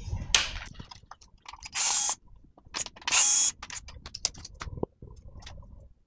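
Bench handling noises from a washing machine's plastic control-panel housing being moved about: scattered clicks and knocks, with two short, loud hissing scrapes about two and three seconds in.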